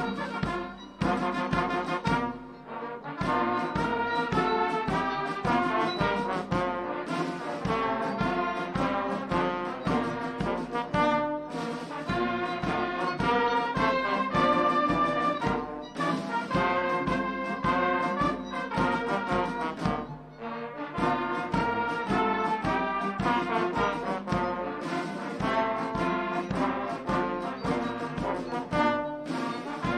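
Brass band music with trumpets and trombones, playing a brisk piece in short, rhythmic notes.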